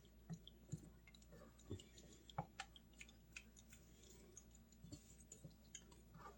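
Near silence with faint, scattered clicks and taps: a spoon stirring milk and cheese sauce in a pot.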